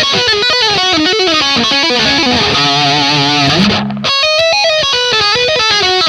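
Ibanez RGIT20FE electric guitar played through its neck pickup, an EMG 60 humbucker: quick single-note lead lines, a held note with vibrato about halfway, a short break, then more quick notes.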